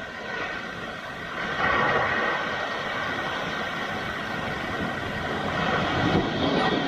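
Sea waves breaking on a rocky shore: a steady rushing surf that swells about one and a half seconds in and holds.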